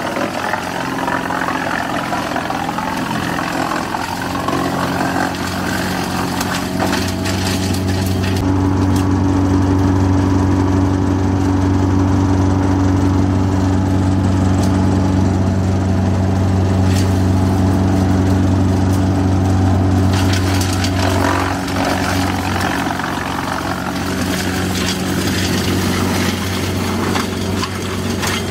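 Diesel engine of a Greenmech EVO 165DT tracked wood chipper running steadily. It gets louder and heavier about eight seconds in and eases back about twenty seconds in.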